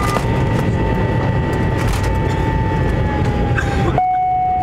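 Cabin noise of a McDonnell Douglas jet airliner taxiing: a steady engine rumble and air hiss with a thin engine whine that sinks slightly in pitch. About four seconds in the sound changes abruptly, the hiss dimming and the whine dropping lower.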